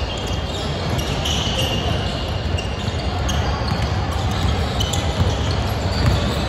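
Basketball dribbled on a hardwood gym floor during play, a run of sharp bounces with short high sneaker squeaks, echoing in a large gym hall.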